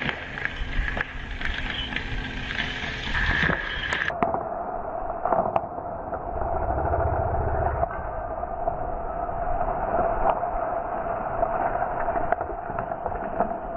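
An engine running steadily. About four seconds in the sound changes abruptly to a steadier, lower drone with a few clicks and knocks.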